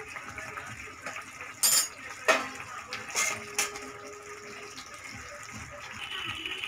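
Steel spoon and spatula knocking and scraping against a kadai as garam masala is stirred into simmering curry gravy, with four sharp clinks in the middle seconds over a low, steady bubbling hiss.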